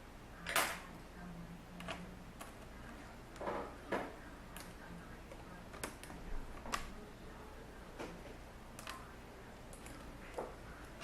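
Irregular sharp clicks and light taps, about a dozen, from handling a laptop's plastic screen assembly and small parts; the loudest comes about half a second in.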